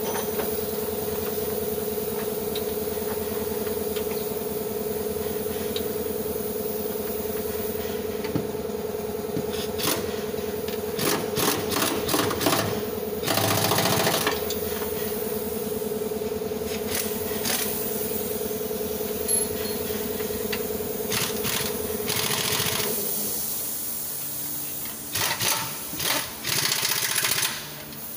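Car engine running at a steady idle, its note changing about two-thirds of the way in, with several short bursts of louder noise over it.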